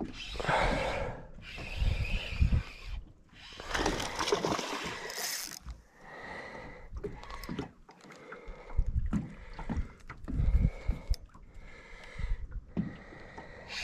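Water sloshing and splashing in repeated surges of about a second each, with a few low thumps.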